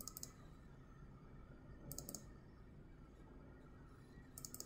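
Computer mouse button clicks in three quick groups about two seconds apart, each group a rapid double click, over faint room tone.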